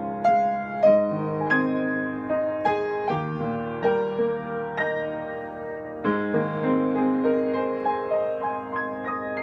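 Slow, gentle solo piano music: single notes and held chords struck about once or twice a second, with a fresh chord about six seconds in.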